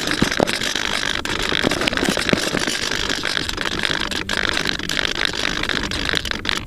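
Steady whirring of an RC foam plane's electric pusher motor and propeller in flight, mixed with wind rush, with a couple of brief dropouts in the second half.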